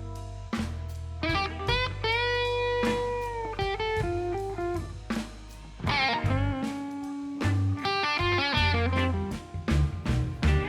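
Background music: a bluesy electric guitar playing bent notes over bass and drums.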